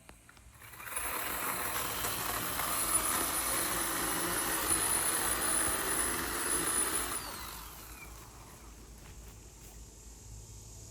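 A gasoline chainsaw runs steadily for about six seconds, then dies away with a falling whine about seven seconds in.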